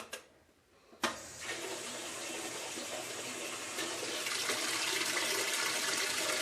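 Water rushing into a Whirlpool washing machine through its newly replaced water inlet (mixing) valve, starting abruptly about a second in and running steadily, growing slightly louder. The washer is taking in water again.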